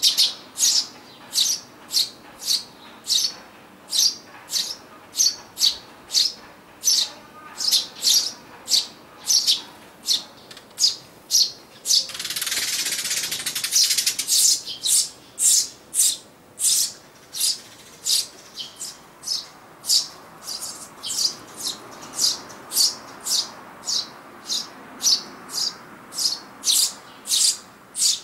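Eurasian tree sparrow chicks in a nest box chirping steadily at about one and a half calls a second, begging for food. About twelve seconds in, a parent's wings whir at the entrance for a couple of seconds.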